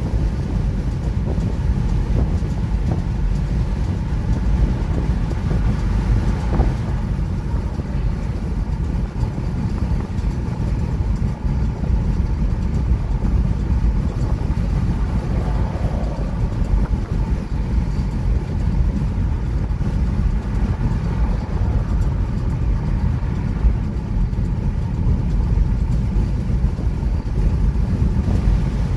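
Steady road and tyre rumble of a car at highway speed, heard from inside the cabin.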